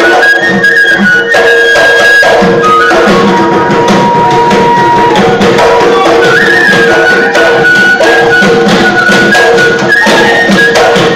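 Live Assamese folk music: dhol drums beating steadily under a wind instrument playing long held notes, with one long steady note held in the middle.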